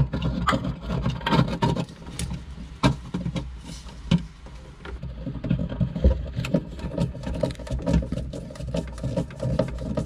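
Scattered clicks, knocks and small rattles as a plastic Rule bilge-pump float switch is set in place and its mounting screws are turned with a hand screwdriver, over a steady low hum.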